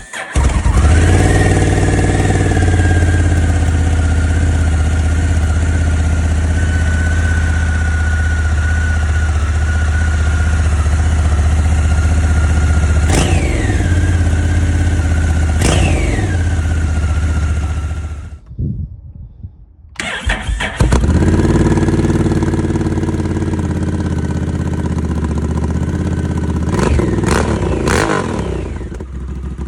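Honda NT1100's parallel-twin engine on its stock exhaust, starting and idling, with two quick throttle blips about halfway through. It is switched off, restarted a couple of seconds later, and blipped several more times near the end.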